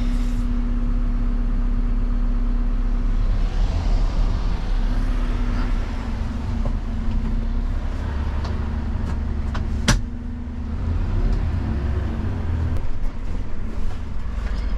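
Refuse truck's diesel engine heard from inside the cab, running steadily at a junction and then picking up as the truck moves off and drives on. A single sharp knock about ten seconds in.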